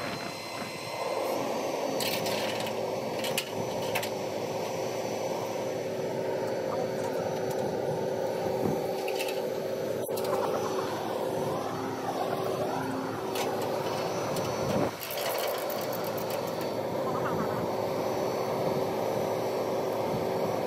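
Flatbed rollback tow truck running with a steady hum while its hydraulic bed is worked, with a few sharp metallic clanks about two to four seconds in.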